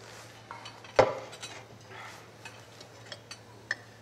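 Scattered light clicks and clinks over a low steady hum, with one sharp knock about a second in.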